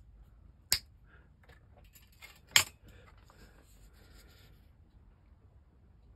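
Small hobby tools and model parts being handled: two sharp clicks about two seconds apart, the second the louder, with light ticking and rustling for a couple of seconds after the second click.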